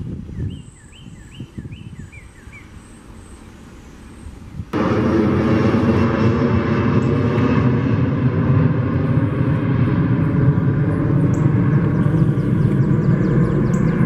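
A northern cardinal sings a quick run of about half a dozen slurred, down-curving whistles over the first three seconds. About five seconds in, the sound cuts suddenly to a loud, steady engine drone with a low hum that lasts to the end and drowns out the birds.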